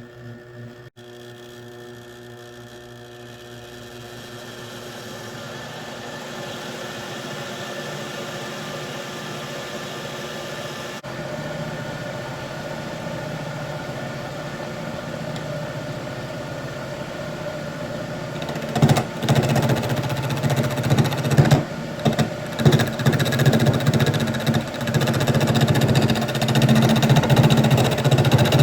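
Homemade wood lathe driven by a treadmill motor, running with a steady hum that slowly grows louder. About two-thirds of the way through, the sound turns louder and uneven with irregular surges, typical of a turning tool cutting into the spinning wood.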